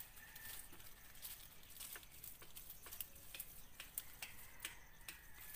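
Faint outdoor ambience: a soft hiss with scattered, irregular light clicks and ticks, and a faint steady high tone.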